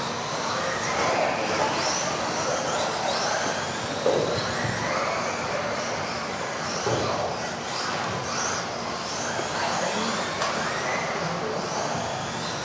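Several electric radio-controlled off-road buggies of the modified class racing. Their motors make overlapping high whines that rise and fall as the cars accelerate and slow, over a steady hiss, with a single knock about four seconds in.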